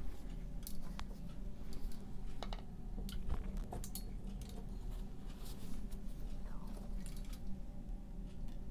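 Scattered light clicks and taps of paintbrushes being handled and picked out from among others, over a steady low hum.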